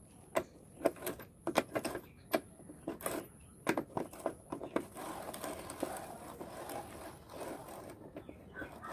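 Irregular sharp metallic clicks and knocks from hand work on a Bajaj Chetak scooter's front wheel bearing and hub, turning about five seconds in to a few seconds of fast rattling before a last few clicks.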